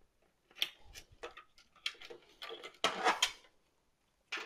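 Scattered clicks and light knocks of a motherboard being handled and lifted off a metal case tray, with a brief burst of rattling and scraping a little before the three-second mark.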